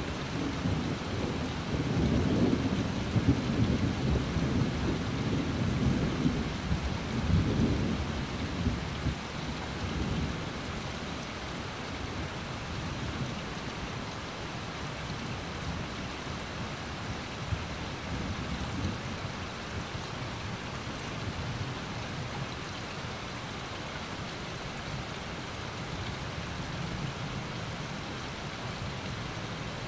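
Steady rain falling on grass and trees, an even hiss, with a low roll of thunder through the first third that fades out about ten seconds in.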